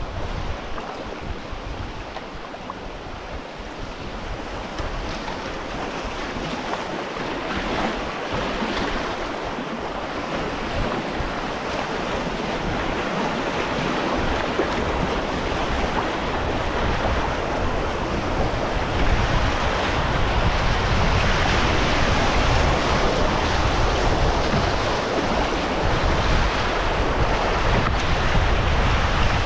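Rushing whitewater of class 2 river rapids, a steady roar of water that grows louder about two-thirds of the way through, with wind buffeting the microphone.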